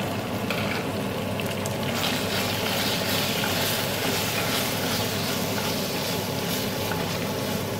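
Onion and curry-powder masala frying in oil in a stainless steel pot, sizzling steadily as it is stirred with a wooden spatula; the sizzle gets louder about two seconds in as the powder is worked into the oil.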